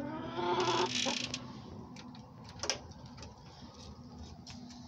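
Domestic hen giving a short pitched call in the first second or so, followed by a few light clicks and taps.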